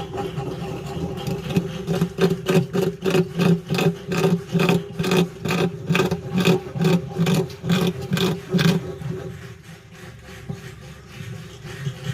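Bamboo rat gnawing, a run of rapid rasping strokes at about two a second that stops abruptly about nine seconds in, over a steady low hum.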